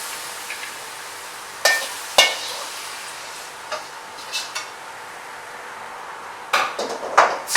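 Chicken stir-fry in yellow bean sauce sizzling in the pan, with a metal utensil knocking and scraping against it a few times, most often near the end.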